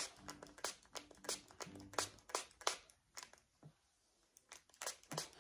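Faint, irregular clicks and rustles of hands handling hair-product bottles and working through a toddler's curly hair, with a quieter gap near the end.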